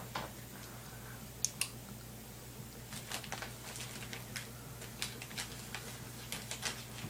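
Irregular light clicks and taps of toy tools cutting and handling Play-Doh: a pair about one and a half seconds in, then a busier run from about three seconds on.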